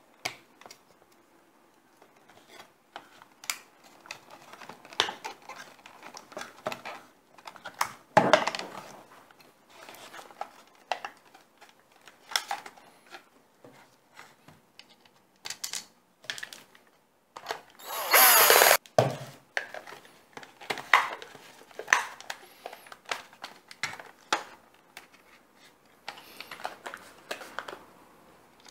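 Plastic clicks, knocks and rattles of a cordless handheld vacuum's housing and battery pack being handled and fitted back together, with one short motor whir of under a second about two-thirds of the way through.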